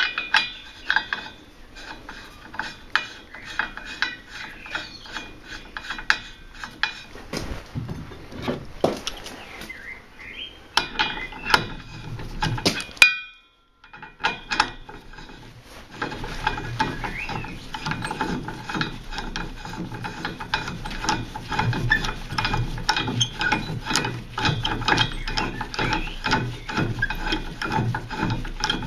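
Socket ratchet wrench clicking rapidly as it turns a bolt through a lug hole of a wheel rim, bolting the rim to a tire changer. A single sharp click about 13 seconds in is followed by a moment of silence, then the ratcheting goes on steadily.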